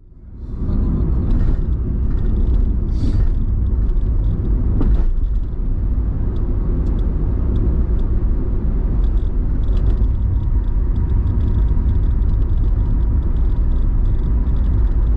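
Steady low rumble of a car driving at highway speed, engine and tyre noise heard from inside the cabin, fading in over the first second.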